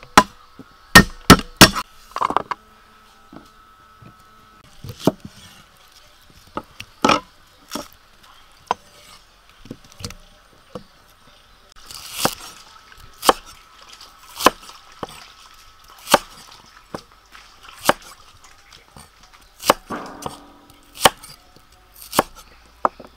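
A cleaver chopping on a thick wooden chopping board: a quick run of loud, sharp knocks near the start, then single cuts about a second apart as shallots are halved and quartered.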